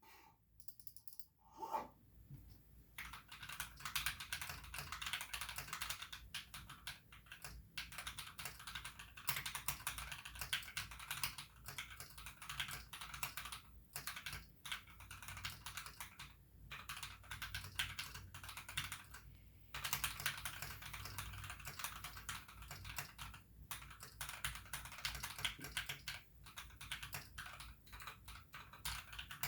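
Typing on a Drop Alt High Profile mechanical keyboard with Alpaca linear switches, lubed with Krytox 205g0 and fitted with switch films: a fast, steady run of keystrokes with a few short pauses.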